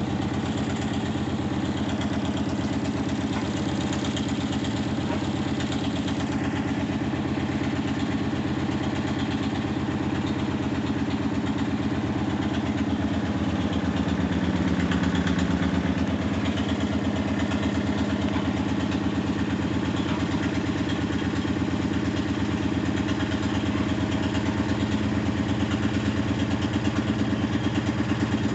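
Washing machine on its spin cycle, making an abnormally loud, insane noise: a steady mechanical rumble with a fast, even pulsing rattle. It grows a little louder about halfway through.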